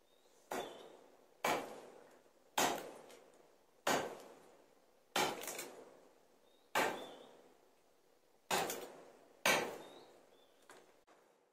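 About eight sharp knocks of a tool striking wood, unevenly spaced a little over a second apart, each dying away quickly, with a fainter knock near the end.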